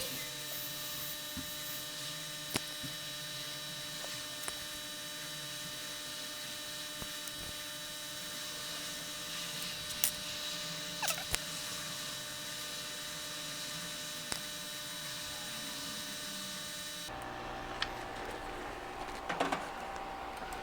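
Steady electrical hum made of several steady tones, with a few faint ticks scattered through it. The background changes abruptly about 17 seconds in, losing most of its higher hiss.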